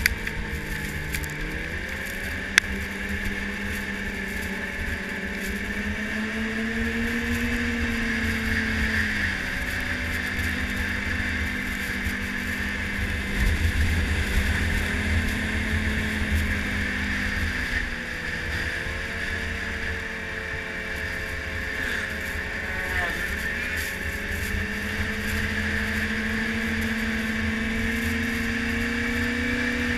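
Yamaha snowmobile engine running under way on a trail, its pitch rising and falling several times as the throttle is worked, over a low rumble. A single sharp click about two and a half seconds in.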